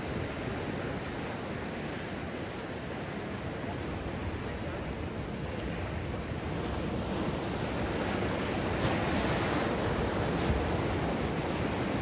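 Pacific Ocean surf breaking and washing up a sandy beach, a steady rush of waves that grows louder in the second half.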